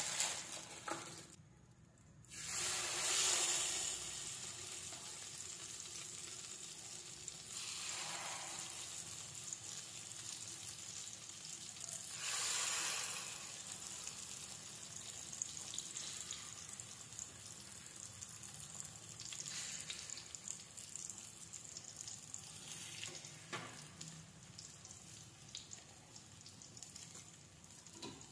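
Egg-dipped eggplants frying in hot oil in a nonstick pan: a steady sizzle that swells several times as more eggplants are laid in.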